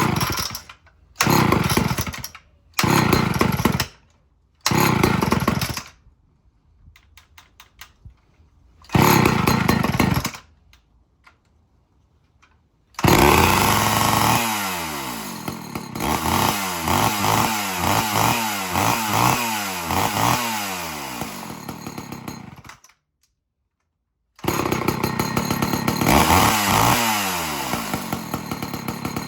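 Two-stroke chainsaw being cold-started: five short bursts of engine sound of about a second each, then it catches about 13 seconds in and runs with the pitch rising and falling as the throttle is blipped. It stops suddenly, then runs again for the last few seconds.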